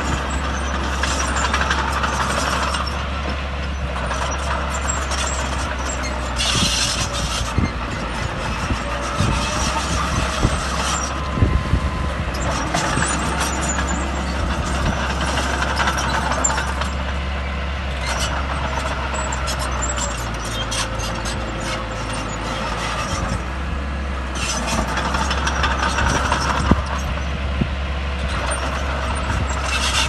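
Heavy diesel earthmoving machinery, a bulldozer and dump trucks, running steadily under load. There is a short hiss about six and a half seconds in, and a few clanks around eleven to twelve seconds.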